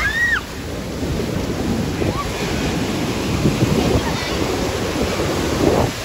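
Ocean surf breaking and washing up a sandy beach, a steady rushing noise, with wind on the microphone. Voices of people in the water are mixed in, including a high cry right at the start.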